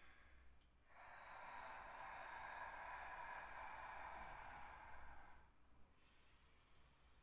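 A person's long, faint exhale during a kneeling side bend in a Pilates exercise. It starts about a second in and fades out about five and a half seconds in.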